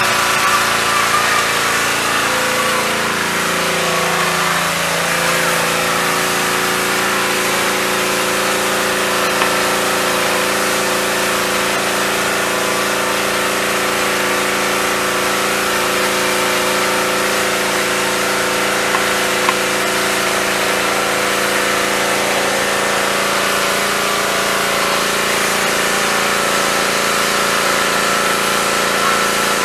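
A steady mechanical hum, like a running motor or fan, with several steady tones. A few seconds in, some of the tones drop a little in pitch, then hold.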